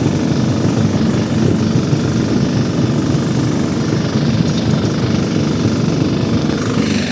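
Walk-behind tractor (motoblok) engine running steadily under way, a loud low-pitched rumble. The tone changes about a second before the end.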